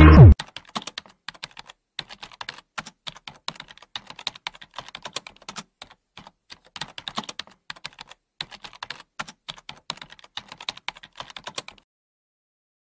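Keyboard typing sound effect: quick, irregular key clicks that run for about eleven seconds and then stop dead. It opens with the last falling sweep of the intro jingle cutting off.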